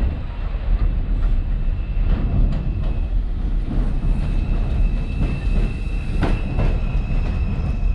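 R142/R142A New York City subway train running through the station, a loud rumble with wheels clacking over the rail joints and a steady high whine over it.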